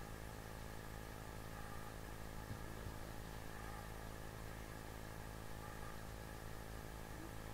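A steady low hum with a constant pitch, with a couple of faint soft taps about two and a half to three seconds in.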